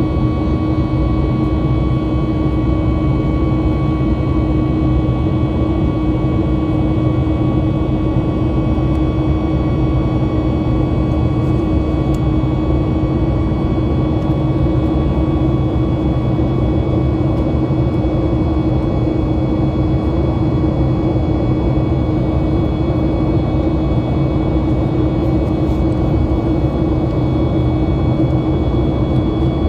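Steady cabin noise of a Boeing 737 MAX 8 airliner: the CFM LEAP-1B turbofans and airflow running at an even level, with a few steady tones over the roar and no change in pitch.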